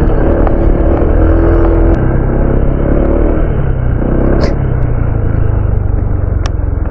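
Honda ADV 160 scooter's single-cylinder engine running under way on a rough dirt and gravel road, with a steady rumble of engine, tyre and wind noise. The engine note changes about two seconds in, and two short sharp ticks come later.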